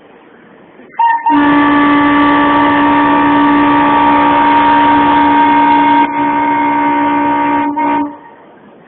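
A WDM-class diesel locomotive's air horn sounding a long blast at close range, several notes at once. A brief toot about a second in, then a steady blast of about seven seconds that drops a little in level near the six-second mark and cuts off sharply near the end.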